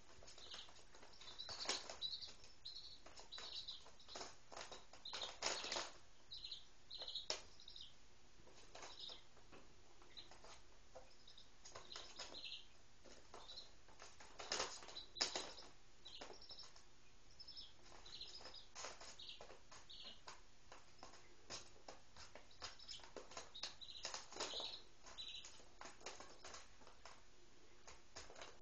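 Three-day-old Speckled Sussex and Rhode Island Red chicks peeping: short, high cheeps scattered irregularly throughout. Brief scratchy taps and rustles come in between, a few of them louder than the peeps, as the chicks move and peck on the newspaper under them.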